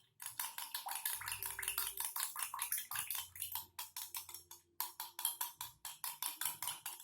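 Metal spoon stirring honey and lime juice in a drinking glass, clinking against the glass in a rapid, even rhythm of several taps a second.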